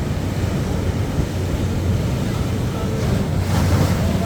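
Ocean waves on a beach under a steady low rumble. A wave washes in with a rising hiss about three and a half seconds in.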